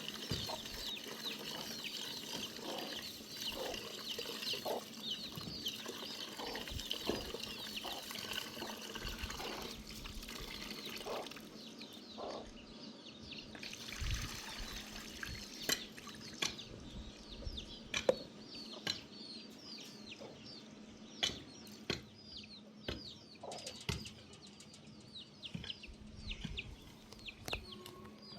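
Chickens clucking, with many short high cheeps, over the sound of dripping and trickling water. Scattered sharp clicks or drips stand out in the second half.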